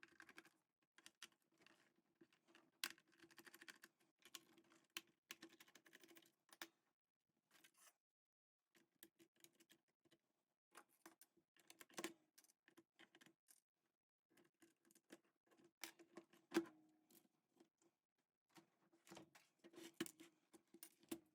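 Faint, scattered plastic clicks and rattles from an IBM Model M keyboard being handled and taken apart, its bezel being lifted off the case.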